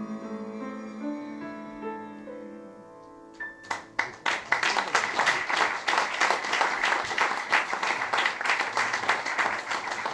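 Piano playing the closing chords of a chanson, held and fading away. About three and a half seconds in, the audience breaks into applause, which is louder than the piano and keeps going.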